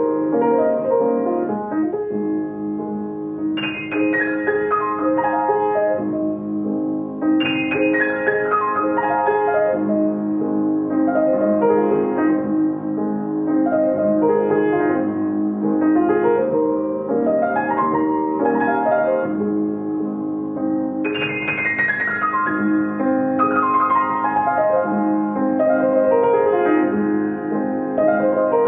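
Piano music of flowing arpeggios, with a sweeping downward run three times.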